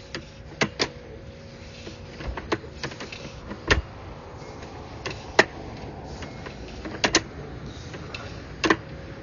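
Irregular sharp clicks and knocks, a second or more apart, over a faint steady hum, as a sewer inspection camera's push cable is pulled back through the lined pipe.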